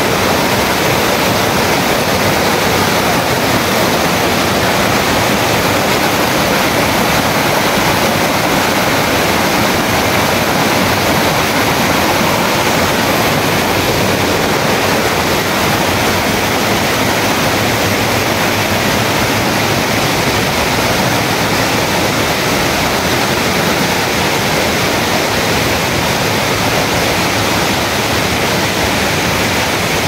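Rocky rainforest creek rushing and splashing over boulders in small cascades, a steady, loud rush of water.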